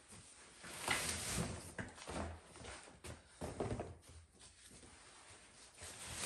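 Shoes and cardboard boxes being handled: irregular rustles and soft knocks as shoes are picked up and set down on the boxes, the loudest about a second in.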